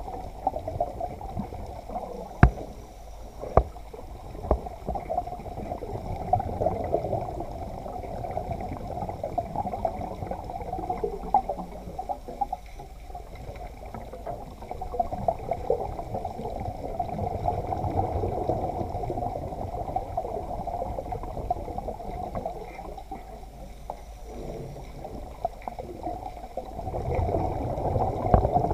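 Water heard underwater through a camera's waterproof housing: a steady muffled wash, with a couple of sharp knocks about two and a half and three and a half seconds in.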